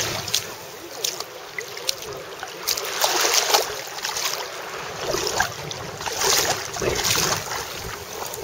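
Sea water splashing in irregular surges, with wind gusting on the microphone and scattered sharp clicks.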